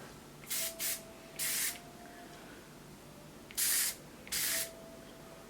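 Biofreeze menthol pain-relief spray being sprayed onto the skin in five short spray bursts: three in quick succession, then a pause, then two more.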